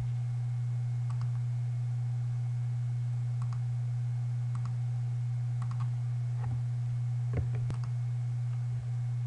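Scattered, faint clicks from a computer mouse and keyboard over a steady low hum.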